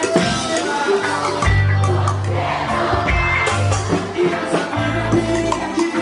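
Music with singing over a strong, rhythmic bass line.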